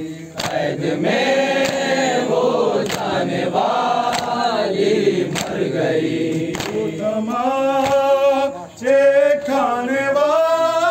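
Men's voices chanting a noha, a Shia Urdu mourning lament, in unison. A lead voice stands out more clearly in the second half. Faint sharp slaps of chest-beating (matam) keep time about once a second.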